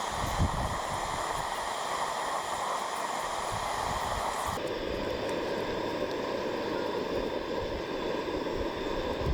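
Cooking on a gas camp stove: a steady rushing hiss from the burner and pan, with a light knock just after the start. About halfway through it cuts abruptly to a lower, duller hiss.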